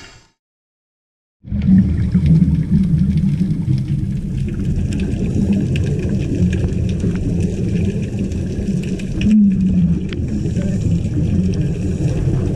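Underwater sound through a camera housing: a loud, continuous low rumble with faint crackling, typical of scuba divers' exhaled regulator bubbles. It starts abruptly about a second and a half in, after a moment of silence.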